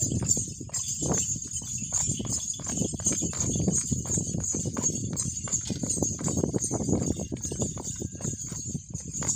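Marwari mare's hooves stamping and stepping quickly and unevenly on packed earth as she dances, with a jingle of ankle bells.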